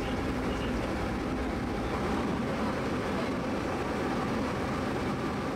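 Steady running noise of a river cruise boat under way: a low engine drone mixed with wind across the open deck.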